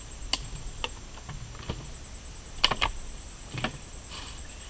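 A series of about six sharp clicks and knocks, irregularly spaced, the loudest just under three seconds in, as gear on the ground, such as plastic bottles and cups, is handled. A steady high insect drone runs underneath.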